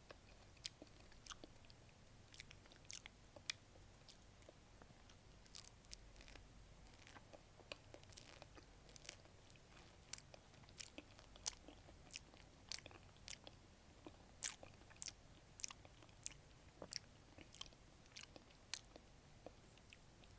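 Close-miked chewing of a fresh peach: an irregular run of short, sharp mouth clicks and smacks, a few a second.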